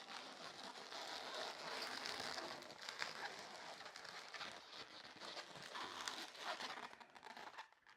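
Inflated latex twisting balloons rubbing against each other as they are pushed into a pinch twist and twisted together, a rustling noise with a few short sharper rubs.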